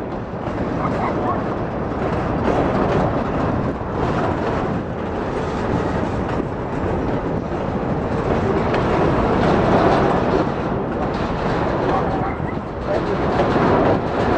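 Freight train cars rolling steadily past, a continuous rumble and rattle of steel wheels on the rails.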